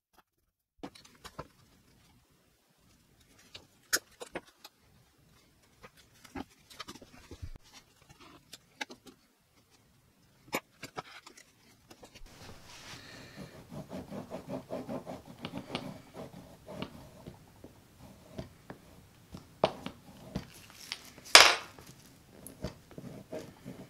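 Small clicks and taps of hand tools and leather on a wooden workbench. From about halfway, a busier run of rustling and scraping as thread is pulled through the stitching holes of a leather knife sheath, with a single sharp knock, the loudest sound, near the end.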